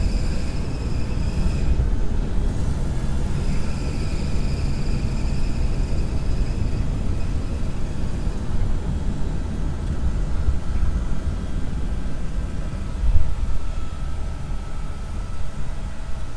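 1964 Chevy Nova engine idling with the A/C compressor engaged, under a steady low rumble. An accessory belt squeals in two stretches in the first seven seconds. The idle is a little low with the A/C load on.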